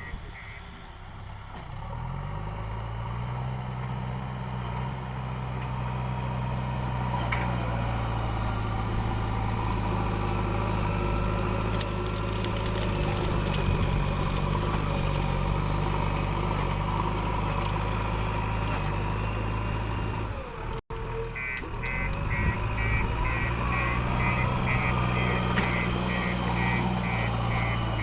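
JCB 3DX backhoe loader's diesel engine running steadily. The sound breaks off for an instant about three-quarters of the way through. After the break, a quick, evenly pulsing high-pitched beep runs alongside the engine.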